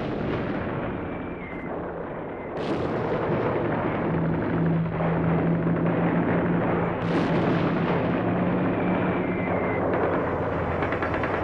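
Battle sound effects: shell or bomb blasts every few seconds over a dense rumble, a faint falling whistle before some of them. A steady low engine drone joins in the middle.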